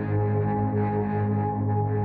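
Ambient background music made of sustained, steady drone tones, with no beat.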